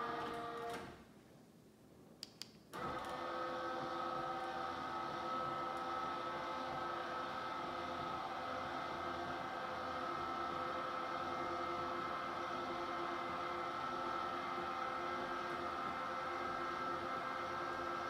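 Motorized roller shades' motors running with a steady whirring hum as the shades rise, stopping about a second in. Two faint clicks follow, then the motors start again near three seconds and run steadily as the shades lower.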